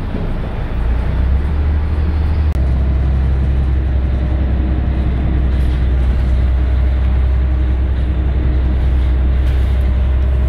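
A Scania L113CRL bus's 11-litre diesel engine running with a steady low rumble. It grows louder over the first couple of seconds, then holds steady.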